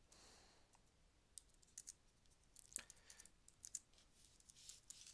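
Faint keystrokes on a computer keyboard, irregular separate clicks as a command is typed.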